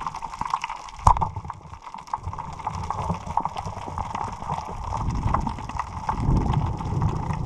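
Underwater sound through a submerged action camera: constant crackling and clicking, with one sharp, loud crack about a second in that matches the band-powered speargun being fired at a pargo (snapper). Low water rushing builds toward the end as the diver rises.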